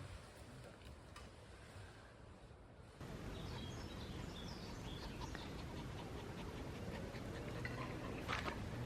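Faint outdoor ambience with a few small bird chirps. The background steps up suddenly about three seconds in.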